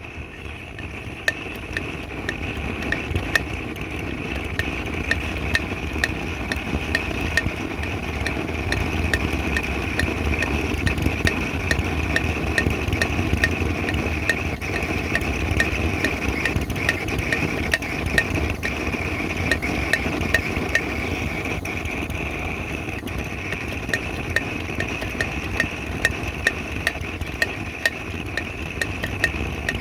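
Vintage pressurized gasoline blow torch burning: a steady rushing flame with a low rumble and a rapid stream of small crackling pops. It builds up over the first few seconds as the heated burner tube vaporizes the fuel and raises the pressure.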